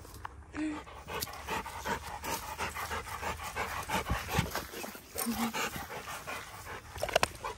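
A dog panting fast and hard close to the microphone, a quick rhythmic run of breaths after running and play.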